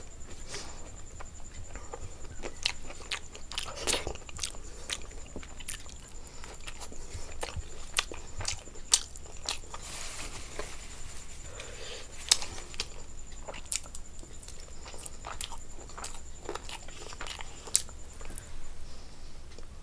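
A person chewing and biting food, with many irregular sharp crunches and mouth clicks; two clicks about halfway through stand out as the loudest.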